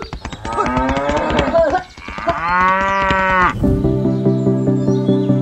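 Cattle mooing: two long, drawn-out moos one after the other. About two-thirds of the way through, background music with a steady repeating beat takes over.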